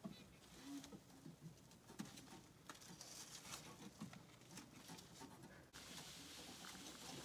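Near silence with faint, scattered creaks and knocks from a horse-drawn carriage as the driver climbs aboard. A steadier hiss takes over about six seconds in.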